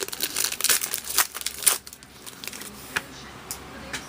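Crinkling and tearing of plastic trading-card packaging being opened, busy for about the first two seconds, then a couple of soft clicks as the cards are handled.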